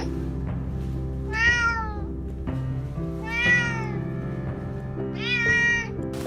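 Domestic cat meowing three times, one drawn-out call about every two seconds, each rising and then falling in pitch, over background music.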